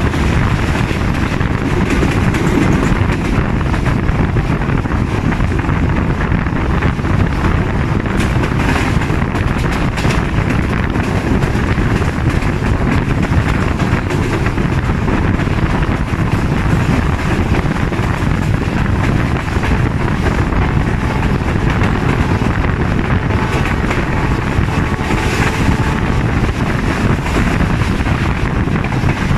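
Passenger train running at high speed, heard from an open coach doorway: a loud, steady rumble of wheels on the rails mixed with wind on the microphone.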